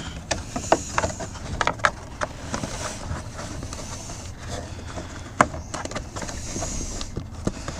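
Handling noise of a wire being fished through a plastic truck door panel: scattered light clicks and rustles, with one sharper click about five and a half seconds in.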